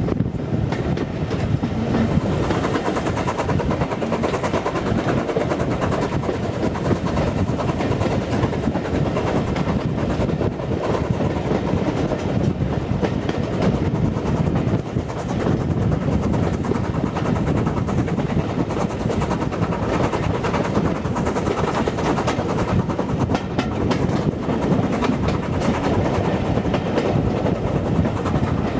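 Steam-hauled passenger train running, heard from an open window of one of its coaches: a steady rumble of the wheels on the rails.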